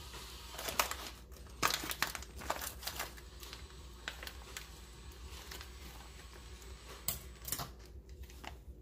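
Clear plastic bag around smoked turkey legs crinkling in bursts as it is handled and pulled open, most busily in the first three seconds and again about seven seconds in.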